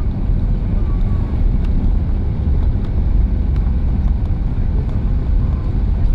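Steady low rumble of an Airbus A340-600 heard from inside the economy cabin: engine and airflow noise, with no distinct events.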